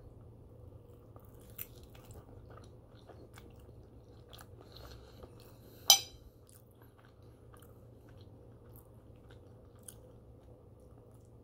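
A person chewing a mouthful of fried egg and French toast, with small clicks and light crunches. About six seconds in, a single sharp clink as a metal fork is set down on the plate.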